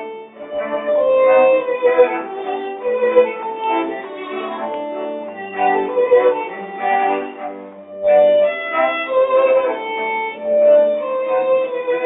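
Background instrumental music: a melody of held, bowed-sounding notes over accompanying chords, with a short break about eight seconds in before it carries on.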